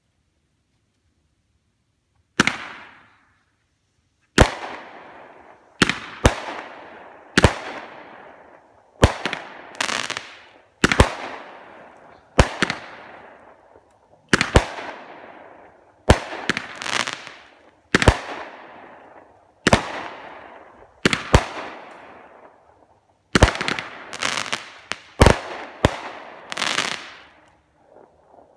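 A multi-shot aerial firework, the 'Demon' by Pyro Demon Fireworks, firing shot after shot. The first bang comes about two and a half seconds in. Over twenty sharp bangs follow about a second apart, some in quick pairs, each with a fading tail.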